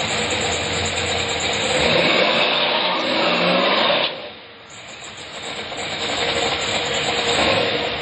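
Drag car's engine running loud, revving up, then cut back suddenly about four seconds in before building back up as the car rolls forward.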